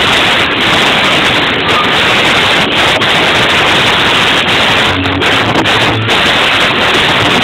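Loud music, smeared into a dense, harsh hiss by an overloaded phone microphone.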